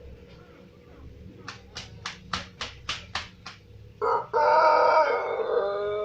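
White Pelung rooster crowing: a quick run of about eight claps, typical of a rooster beating its wings before it crows, then a loud, long, drawn-out crow that starts about four seconds in and steps down in pitch partway through.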